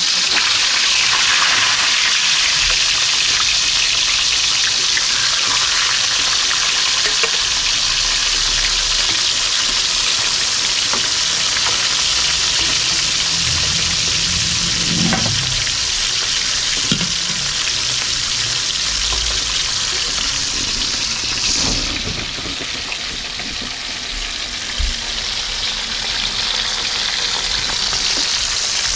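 Food frying in hot oil in a pan, a steady loud sizzle.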